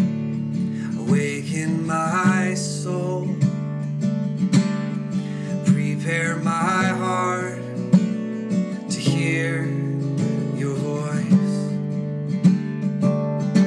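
Acoustic guitar strummed, accompanying a slow, simple worship song.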